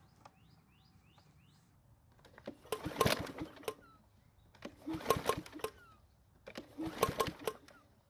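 Three pulls of the recoil starter on a Powersmart push mower's engine, about two seconds apart, each turning the engine over for about a second without it catching. It will not start even with fuel in the tank and the carb primed, which the owner blames on a dirty carburetor. Faint bird chirps come before the first pull.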